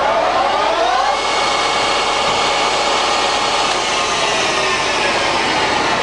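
Colchester Triumph 2000 centre lathe's geared headstock running up to 1120 rpm. The gear whine rises in pitch for about a second, then runs steady.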